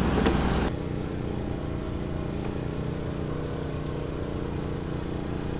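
A small engine on the boat running steadily at a constant speed, an even hum with a fine low pulsing.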